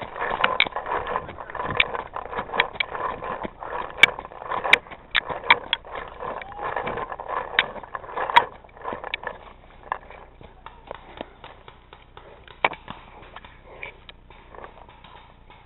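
Dry fallen leaves rustling and crunching as a person moves and crouches over them, with a few sharper pops among the rustle.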